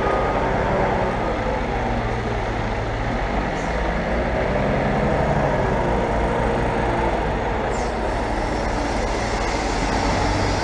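Wheel loader's diesel engine working steadily as it carries a full bucket of sand to a tipper trailer and lifts the bucket, with a truck engine running alongside. A reversing beeper sounds briefly just at the start.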